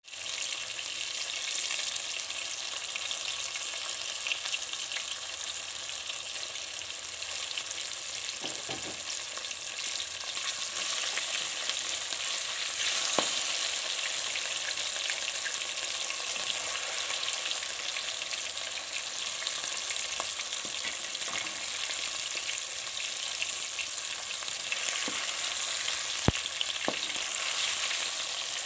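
Gram-flour-coated fish pieces frying in hot oil: a steady sizzle with a few sharp clicks, the loudest near the end.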